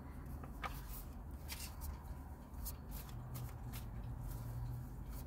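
Tarot cards being shuffled and handled: a scatter of light, irregular flicks and clicks over a faint low hum.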